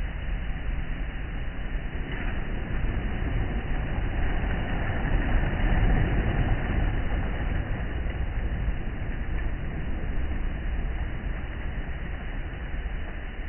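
Sea waves breaking and washing on the shore. The surf swells to a peak about halfway through, then eases off.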